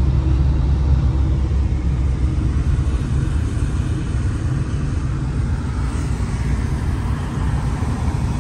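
Steady low rumble of a car driving, heard from inside the cabin: engine and road noise, with a fainter hiss above it.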